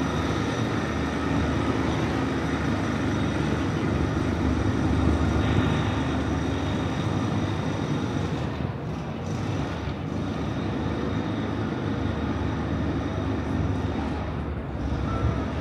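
Steady low rumble of city background noise, likely traffic and machinery, with a faint hum running through it.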